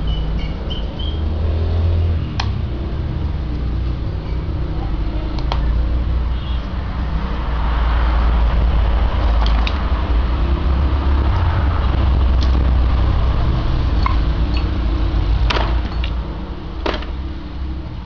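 A steady low rumble that swells in the middle and eases off near the end, with scattered light clicks as small laptop keycaps and keyboard parts are handled.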